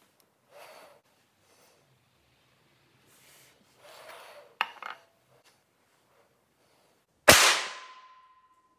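A 2mm pinfire miniature Colt 1873 Peacemaker revolver fires a single shot about seven seconds in: a sharp crack with a fading tail and a thin ringing tone that lingers for about a second and a half. Before it come faint handling rustles and a couple of sharp clicks a few seconds in.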